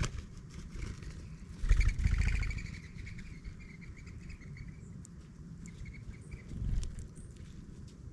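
Small birds chirping, a run of short repeated chirps starting about two seconds in, over a constant low rumble of wind. A muffled thump comes just before the chirps, and another near the end.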